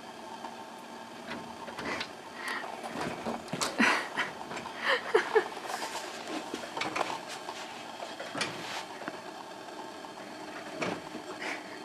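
Irregular scratches, taps and rattles on a screen door as a squirrel clings to and scrambles about on the mesh and a cat swats at it. They come thickest and loudest a few seconds in, with a few more near the end.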